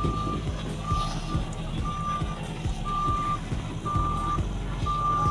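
Reversing alarm on heavy road-paving machinery, a steady single-tone beep about once a second, over the low, steady running of a diesel engine.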